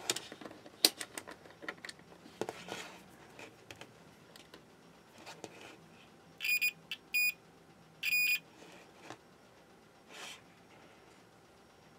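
Clicks from a digital multimeter's rotary selector dial being turned and its probes handled, then the meter's continuity buzzer beeping three short times about six to eight seconds in as the probes touch a power cord's conductors; the beep signals that the conductor is unbroken.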